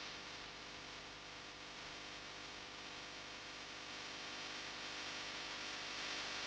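Faint steady hiss with a low, even hum underneath: background room tone, with no distinct events.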